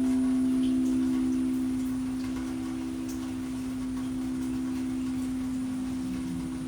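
A singing bowl ringing after a strike, one steady low hum with a few overtones slowly fading away; a higher overtone dies out about a second in.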